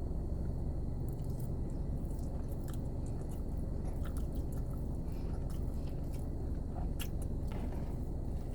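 A person chewing a mouthful of creamy chicken alfredo pasta, with small wet mouth clicks now and then, over a steady low rumble in the background.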